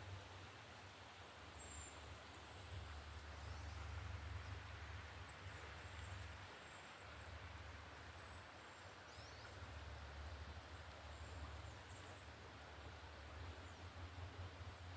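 Quiet forest ambience: a faint steady hiss over a low rumble, with scattered brief, thin, high bird chirps.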